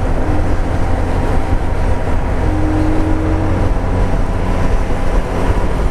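Dafra Next 250 motorcycle on the move in traffic: its single-cylinder engine running steadily under a constant rush of wind and road noise.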